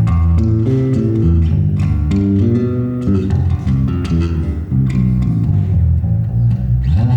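Solo bass guitar playing an instrumental melody, plucked notes moving above low held bass notes, with a quick slide up in pitch near the end.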